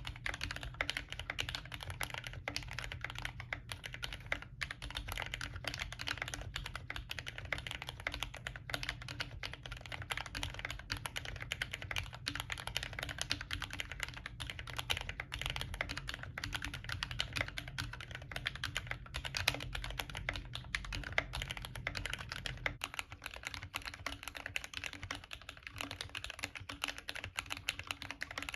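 Steady, fast typing on a Glorious GMMK Compact with lubed CIY Evo Red linear switches and OEM-profile keycaps, its PCB wrapped in Press n Seal and its spacebar band-aid modded. About 22 seconds in, the board switches to the version with foam and shelf liner dampening the bottom of the case, and a low background rumble drops away.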